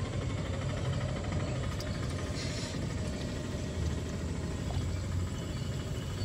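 Gulab jamun dough balls frying in hot oil in a kadhai, a soft steady sizzle that briefly grows louder about two and a half seconds in, over a steady low rumble.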